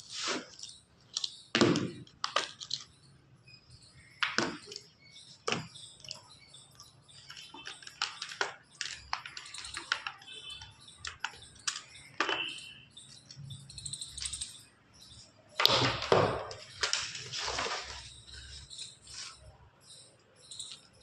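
Irregular rustling, crinkling and clicking of a new laptop and its packaging being handled, with a louder, longer stretch of rustling about three quarters of the way through.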